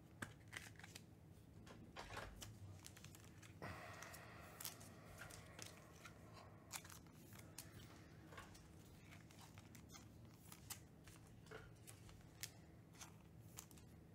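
Faint handling of trading cards and pack wrappers: scattered light clicks and rustles, with a longer crinkling stretch about four seconds in, over a low steady hum.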